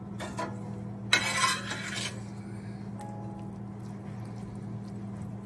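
Metal serving spoon clinking and scraping against a ceramic bowl while moving sautéed vegetables. It is loudest about a second in, over a steady low hum.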